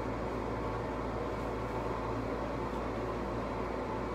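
Steady background hum with an even hiss, unchanging and with no distinct events.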